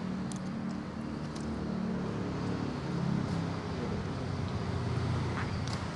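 Road traffic: the steady engine hum of passing vehicles, swelling about three seconds in and again near the end, with a few faint light clicks.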